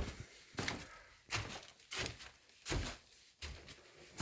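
Footsteps on a wooden floor, an even walk of about one soft thud every 0.7 seconds.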